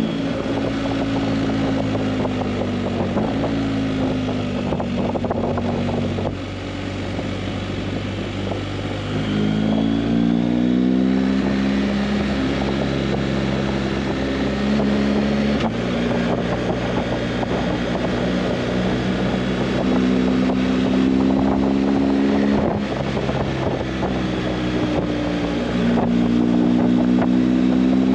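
Motorcycle engine running under way, its pitch stepping and gliding up and down with throttle and gear changes, with wind rushing over the microphone.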